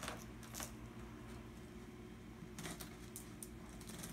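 Knife blade slitting the packing tape on a cardboard box: a few short, faint scratchy scrapes, one near the start and a cluster near the end, over a low steady hum.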